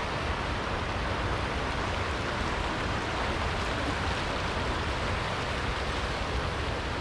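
River water rushing over shallow rocky rapids, a steady even rush.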